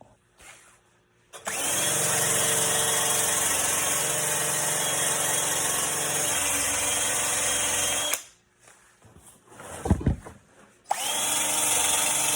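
Hand-held power grinder stripping surface rust and paint from a steel car dashboard down to bare metal. It starts about a second and a half in, runs steadily for about seven seconds and cuts off. After a thump it starts again near the end.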